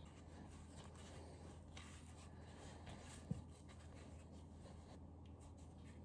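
Faint rubbing and scraping of hands kneading bread dough on a floured countertop, with one brief soft thump a little over three seconds in as the dough is pressed down.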